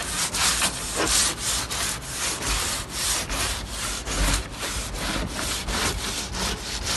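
Stiff-bristled push broom scrubbing back and forth over plywood boat flooring, spreading a white liquid wood sealer: a continuous run of quick brushing strokes, several a second.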